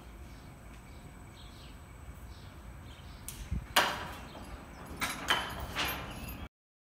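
Construction-site work noise: a low rumble with several short, harsh scraping sounds, the loudest about four seconds in, then the sound cuts off abruptly.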